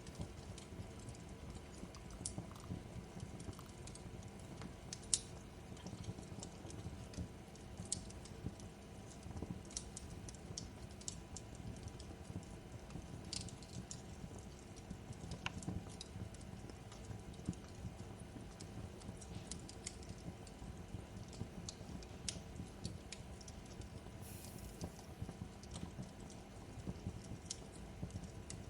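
Crackling fireplace: irregular sharp pops and snaps of burning wood over a low, steady rumble of the fire.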